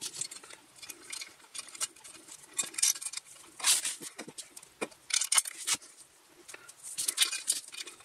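Small metal hardware being handled by hand: bolts, washers and nuts clinking and scraping against a metal cap plate and the wooden bench as they are fitted, in short irregular clinks and scrapes.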